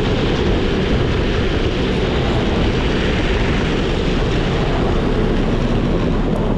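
Steady rolling rumble of a Max 4 Pro hub-motor electric skateboard's wheels on street pavement at cruising speed, heard close up from a camera mounted on the deck, with no break or change.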